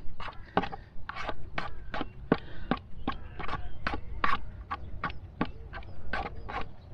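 Scissors snipping worms into small pieces: a quick, irregular series of sharp clicks, about three a second.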